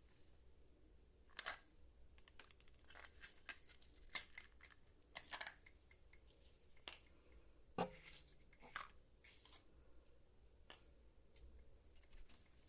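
Faint, scattered clicks, taps and short rustles of small plastic toy pieces and packaging being handled, at irregular moments, with a sharper tap about four seconds in and again near eight seconds.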